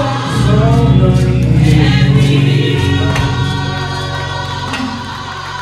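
Gospel choir singing with men's and women's voices over a deep, steady bass accompaniment. The music fades out gradually over the second half.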